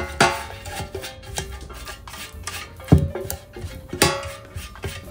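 Background music with plucked strings, with a few sharp knocks and clinks of a metal loaf tin shifted on the table while oil is brushed into it.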